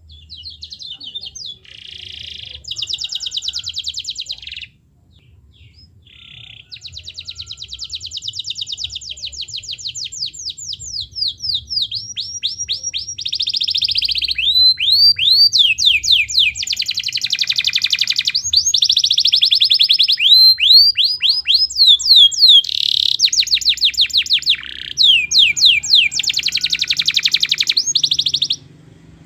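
Domestic canary singing a long song of rapid trills and rolls mixed with quick sweeping notes. It breaks off briefly about five seconds in, then grows louder and stops abruptly just before the end.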